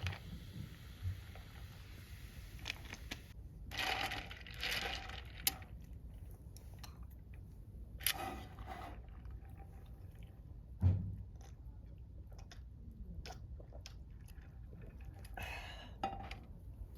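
Close-up crunching and chewing of someone eating, with scattered small clicks and knocks.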